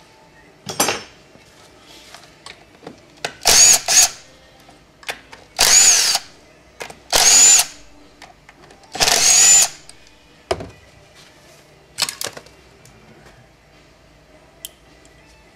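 Cordless power driver spinning in short bursts, about seven times, each with a high whine that rises and falls as the motor speeds up and stops, backing bolts out of an automatic transmission case.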